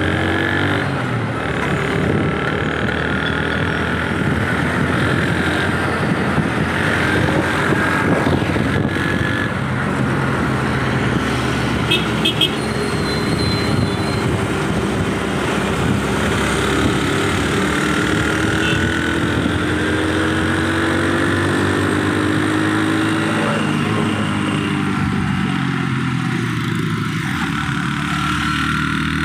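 Road traffic heard from a moving vehicle: engines running with a note that rises and falls, and steady road noise, with a short horn toot now and then.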